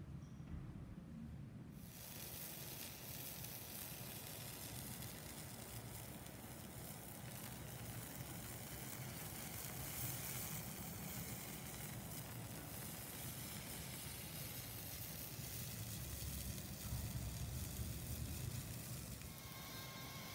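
Tomatillos, green chiles, garlic and onion sizzling as they dry-roast on a comal, a steady hiss that starts suddenly about two seconds in.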